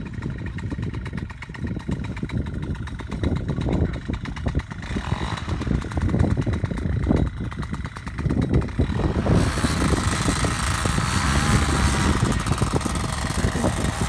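Paramotor engine and propeller running at low power under a gusty wind rumble on the microphone, then opened up to full throttle about nine seconds in for the take-off run, becoming a much louder, steady hissing drone.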